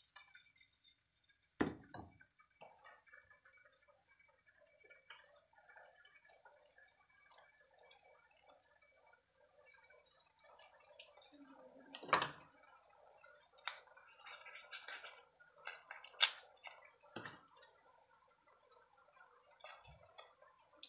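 Red chili spice paste thinned with water simmering in a metal wok, faintly bubbling and popping, with occasional sharp clicks and a few louder knocks, the loudest about twelve seconds in.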